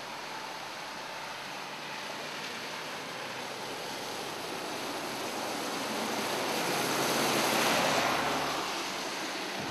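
Floodwater sloshing and rushing around cars as they drive slowly through deep water covering the road. The wash swells louder about six to eight seconds in as one vehicle passes close, then eases off.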